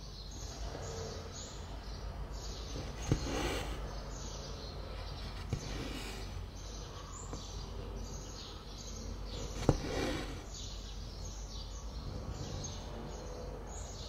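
Birds chirping in the background over a steady low hum, with a few sharp clicks and brief rustles; the loudest click comes about ten seconds in.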